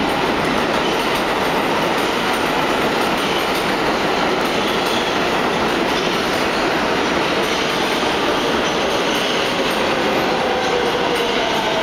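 Subway train running on the tracks through an underground station: a steady, loud rush of steel wheels on rail, with faint wheel squeal coming in near the end.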